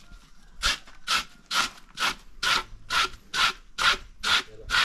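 Bamboo knife scraping the pulp off a length of enset (false banana) stem laid on a slanted wooden board, in even rasping strokes about two a second, starting just under a second in. This is the decortication step that strips the pulp for fermented enset bread.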